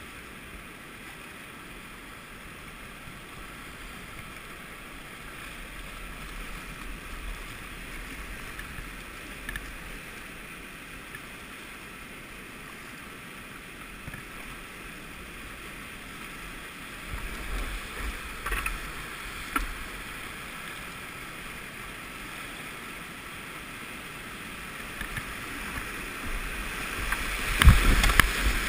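Whitewater river rapids rushing steadily around a kayak, with a few splashes partway through. Near the end the kayak runs into the rapid, and loud whitewater splashes and buffets close against the boat and the helmet camera.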